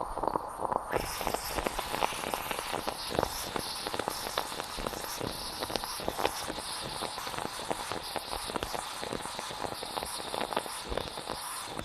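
Moka pot sputtering and gurgling as the coffee comes up: a dense, irregular crackle of small pops, with a hiss that sets in about a second in.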